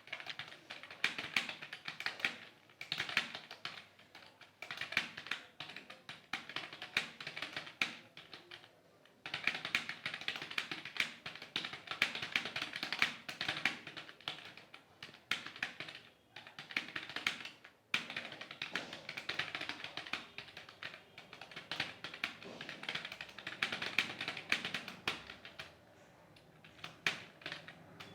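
Rapid typing on a mobile phone's on-screen keyboard: a fast, continuous stream of key-press clicks with a few short pauses, the longest about nine seconds in.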